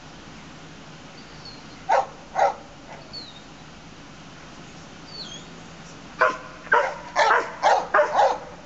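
Police dog barking: two barks about two seconds in, then a quick run of about six barks near the end.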